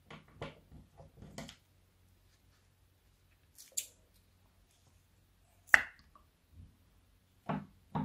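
Clear rubber balloon filled with liquid and small plastic charms, squeezed and handled by hand: short squishes and rubbery creaks, a sharp snap a little before six seconds, the loudest sound, and two soft plops near the end as its contents spill into the bowl of slime.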